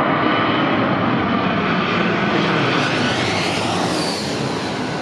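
Passenger jet on landing approach passing low overhead: loud jet engine noise with a high whine that drops in pitch as the aircraft goes over, easing off near the end.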